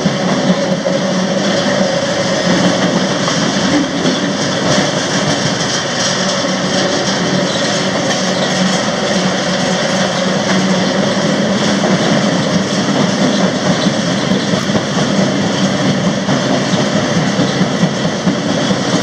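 A freight train running: a loud, steady rumble of wheels on the rails that does not let up.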